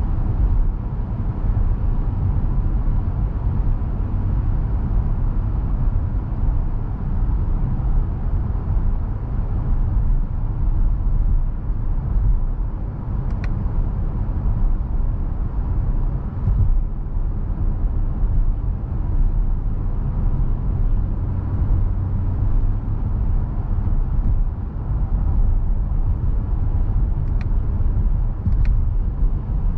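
Steady low rumble inside the cabin of a 2020 Honda Pilot Touring AWD cruising on a highway: tyre and road noise with its 3.5-litre V6 running underneath.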